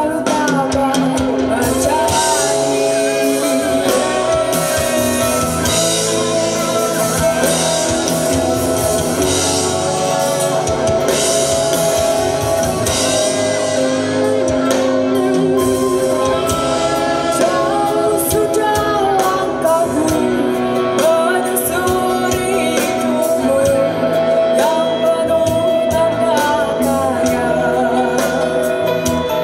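A pop-rock band playing a song: a singer over guitar and drum kit.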